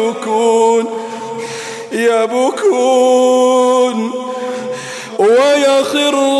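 A man's voice reciting the Quran in a melodic chant, drawing out long held notes with short breaks between phrases.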